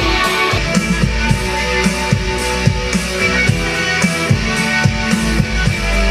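Rock music with a steady drum beat, bass drum and guitar, played back through a speaker during a sound test.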